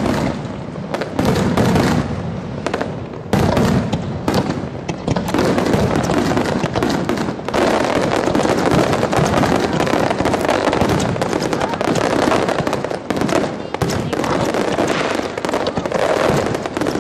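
Fireworks display: a rapid, unbroken barrage of aerial shell bursts and crackling, several bangs a second, loudest in the first few seconds.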